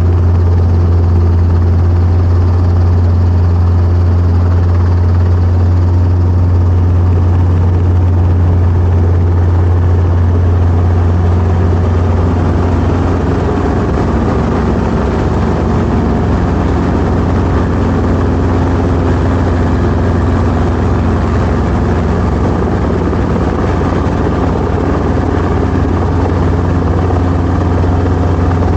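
Helicopter rotor and engine running with a loud, steady low drone during a hover reposition.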